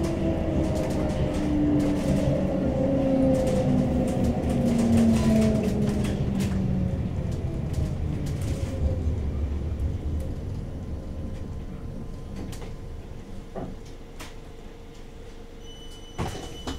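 CAF Urbos 3 tram's traction motors whining under the floor, heard from inside the car; the whine falls steadily in pitch and fades as the tram slows. A knock and the start of a beep come near the end.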